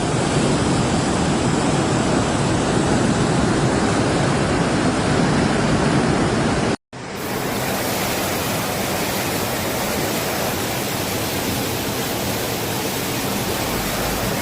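Steady rush of fast-flowing floodwater. It cuts out for an instant about seven seconds in, then goes on as a brighter, more even hiss.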